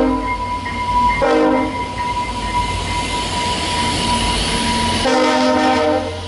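Multi-chime air horn of an approaching VIA Rail passenger train. One blast ends just after the start, a short blast comes about a second in, and a longer blast about five seconds in, with the train's rumble between them.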